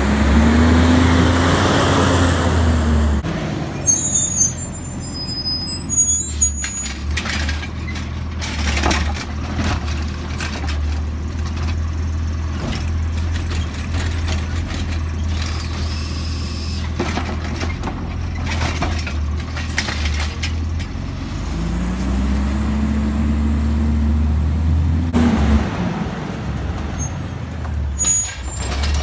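Automated side-loader garbage truck's diesel engine running under load, revving up and settling back twice, near the start and again about two-thirds through, as the hydraulics work the lifting arm. Short clanks and knocks of the cart and arm come between, with brief high squeals near the beginning and near the end.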